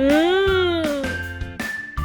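Upbeat children's background music with a steady low beat. A pitched sound slides up and then down over the first second.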